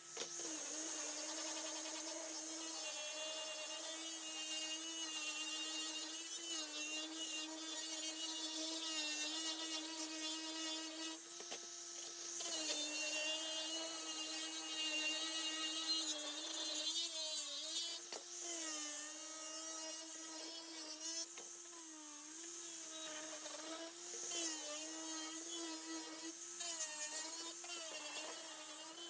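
Small high-speed power tool running steadily with a hissing grinding or sanding noise. Its pitch dips and recovers again and again as the tool is pressed against the work.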